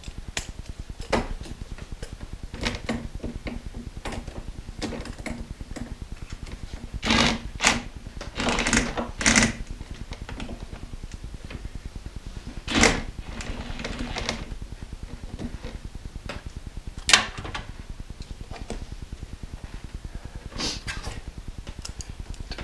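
Scattered clicks, clinks and knocks of tools and bolts as engine bolts are backed out with a cordless ratchet, with a few short louder bursts and brief motor whirs in between.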